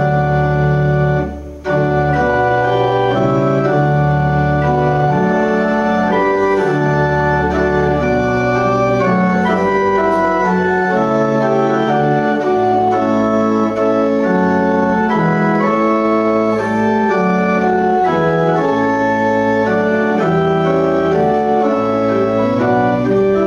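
Organ playing a hymn in sustained chords that change every second or two, with a brief break about a second and a half in.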